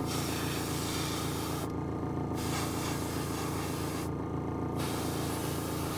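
Airbrush spraying paint in a steady hiss that stops twice, briefly, as the trigger is let off and then resumes, over a steady low hum.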